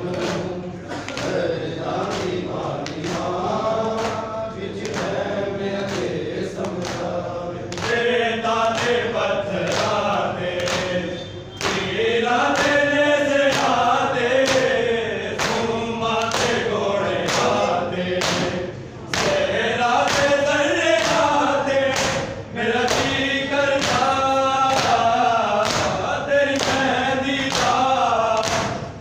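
Men chanting a Punjabi noha together while beating their chests in matam, the open-palm slaps on the chest keeping a steady beat under the singing.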